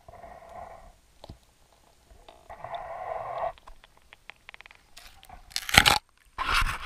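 Underwater camera being hauled up through an ice-fishing hole, heard from the camera itself: muffled underwater rumbles and a few ticks, then two loud bursts of splashing and scraping as it comes out of the water onto the ice near the end.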